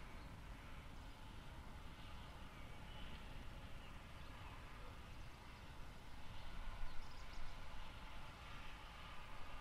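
Faint outdoor background: a steady low rumble of distant street traffic, with faint bird chirps here and there, a little louder about seven seconds in.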